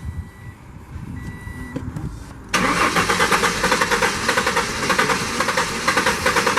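1994–98 Ford Mustang engine cranking on its starter with a fast, even rhythm for about four seconds, starting about two and a half seconds in, without catching: a crank-but-no-start. Before that an electronic warning beep sounds in short stretches.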